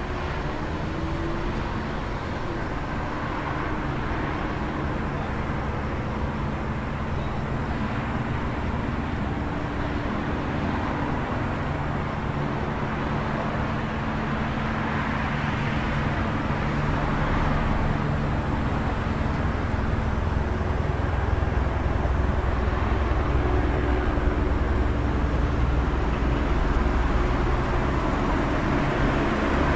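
City street traffic ambience: a steady wash of passing cars with a low engine rumble, growing louder about two-thirds of the way through.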